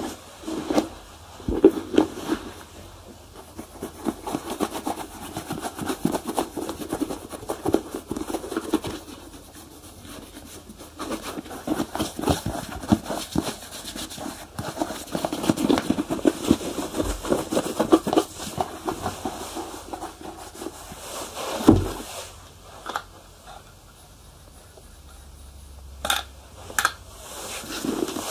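Shoe polishing: quick rubbing strokes over leather in long runs, with a few sharp knocks in between, one of them louder about three-quarters of the way through and two more near the end.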